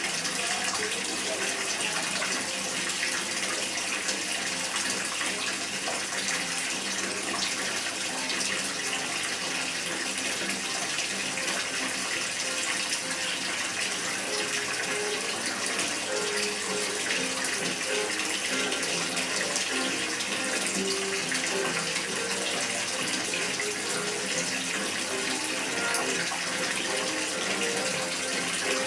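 Water running from a tap into a partly filled bathtub, a steady, unbroken rush.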